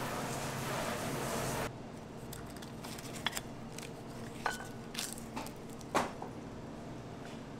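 Steady room noise that cuts off suddenly under two seconds in, then a few light clicks and taps of dishes being handled and set down as a sheet of dried laver is laid on a small ceramic plate: one brief ringing ceramic clink about four and a half seconds in, and the loudest tap about six seconds in.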